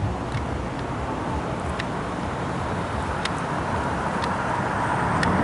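Low, steady rumble of a passing train and road traffic at a railroad crossing, growing louder toward the end, with a few faint scattered clicks.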